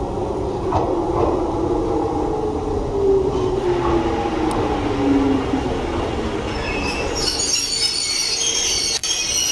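Izuhakone Railway 3000-series electric train braking into a station: its motor whine falls steadily in pitch over several seconds as it slows. High-pitched squealing and hissing set in near the end as it comes to a stop.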